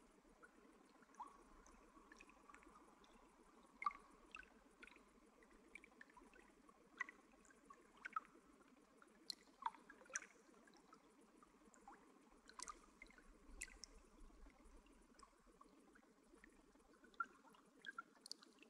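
Faint running water, with irregular drips and small plops of drops falling into water over a low, steady trickle.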